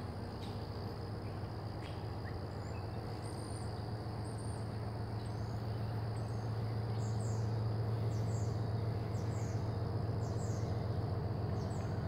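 Woodland ambience: a steady high-pitched insect drone with birds chirping, a run of short, high, falling chirps in the second half, over a steady low hum.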